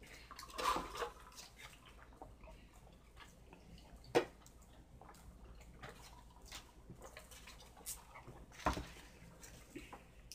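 Faint eating and table sounds: a drink sipped through a straw from a paper cup, paper wrappers rustling, and a couple of sharp knocks, about four seconds in and again near the end.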